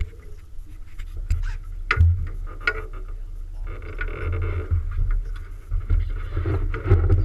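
Wind buffeting the microphone on an open fishing boat at sea, a ragged low rumble, with a few sharp knocks from the deck and a rattly stretch about four seconds in.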